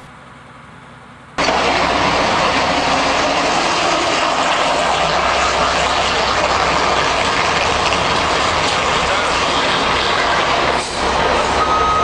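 Concrete mixer truck running loud and steady on an icy street, starting suddenly about a second and a half in. Its reversing beeper starts right at the end.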